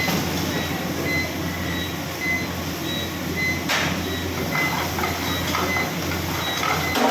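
A steady rushing, machine-like noise with a low hum, with faint short high-pitched beeps about once a second and a brief louder rush about halfway through.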